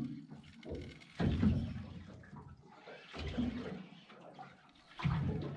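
Water sloshing and slapping against a small boat's hull in uneven surges every couple of seconds.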